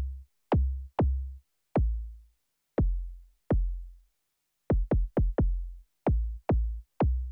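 Synthesized kick drum from a single sine-wave oscillator in the Vital soft synth, with a fast pitch envelope. Each hit is a sharp downward pitch sweep into a short low thump. It is played about a dozen times at uneven intervals while soft-clip distortion is dialled in.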